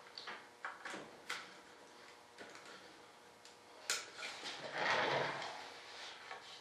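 Small clicks and taps of hand work on a molded model-aircraft part, with a sharp click about four seconds in followed by a short rasping scrape.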